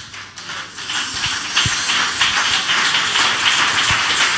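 Church congregation applauding and cheering, swelling about a second in into steady, dense clapping.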